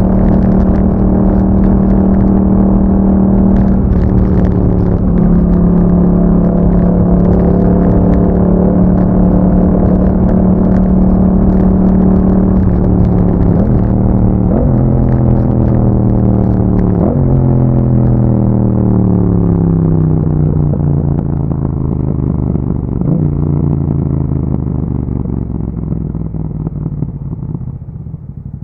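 Yamaha MT-07 parallel-twin engine through an Akrapovic exhaust, running at a steady cruise with brief gear-change breaks. From about halfway it slows through downshifts, its note falling step by step to a low, quieter run near the end.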